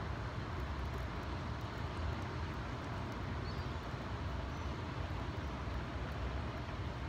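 Steady low rumbling, rushing outdoor noise of wind and moving water below a dam, with a couple of faint high bird chirps in the middle.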